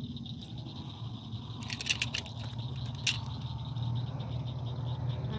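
A quick cluster of light rattling clicks, then one sharp click about a second later, as a small channel catfish is handled and hung on a line and hanging fish scale. A steady low hum and a high, insect-like drone run underneath.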